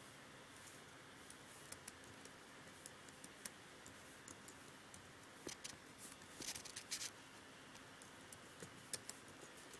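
Faint computer-keyboard clicks: a few scattered keystrokes and a short burst of typing about two-thirds of the way in, over a quiet room hum.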